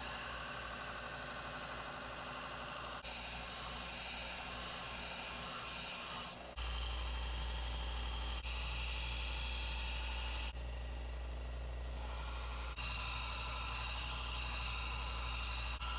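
Electric grinder running steadily as the edge is ground onto a spring-steel knife blade, heard in a string of short cut-together clips; a deeper hum comes in about six and a half seconds in.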